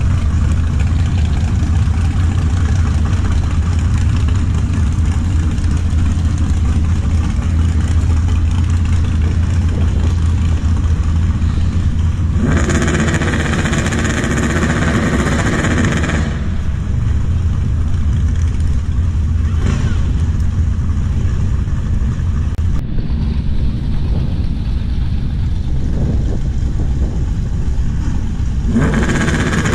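Drag-race car engines running at the strip, with a louder stretch of hard acceleration about halfway through that lasts about four seconds and another that begins near the end.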